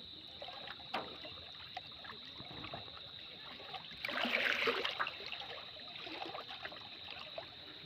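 Water splashing and trickling as a hand fishing line is pulled up out of the river beside a wooden boat, loudest for about a second around four seconds in, over a steady high-pitched drone.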